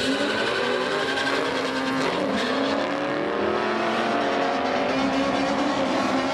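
A Honda Civic hatchback and a Fox-body Ford Mustang accelerating hard side by side down a drag strip. Their engine notes climb in pitch and fall back at each gear change.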